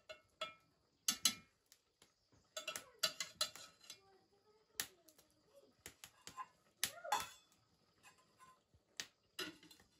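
Scattered sharp clicks and clinks of dishes and utensils, like a plate being handled during a meal. A faint high steady tone runs underneath, and a few short gliding cries come in the middle.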